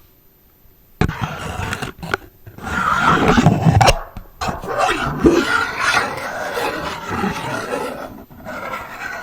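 A pet dog growling and vocalising loudly, starting about a second in and going on without a break.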